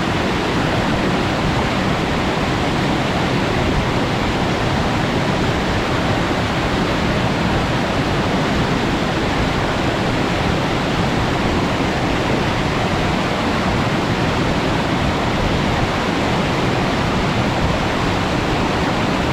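Waterfall: water pouring steadily over the lip of the upper tier into the plunge pool below, a dense, even rushing.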